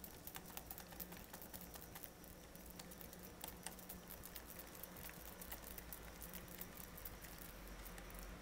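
Whisk stirring a thick tomato sauce in a glass measuring cup: faint, quick, irregular ticking and clicking of the whisk against the glass.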